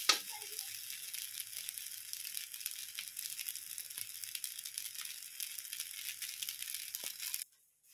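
Rice frying in oil in a metal wok, with a steady sizzle, faint crackles and a few small clicks; it cuts off suddenly about seven seconds in.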